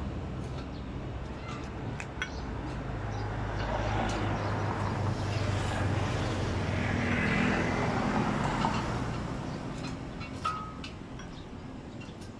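Low engine rumble that swells over several seconds and then fades, like a motor vehicle going past, with a few light metallic clicks from tools on compressor fittings.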